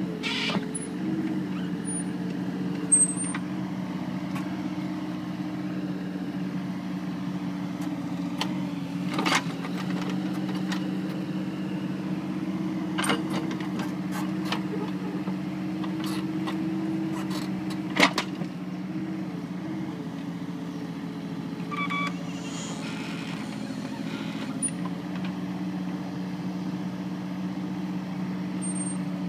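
Mini excavator's diesel engine running steadily under load, with a few sharp knocks and clanks from the machine working the stump.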